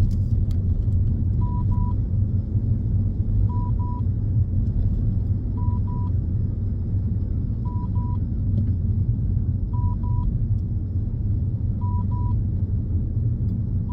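A dashcam beeping a double beep at one pitch about every two seconds, six times, its warning that no SD card is inserted. Under it runs the steady low rumble of the car.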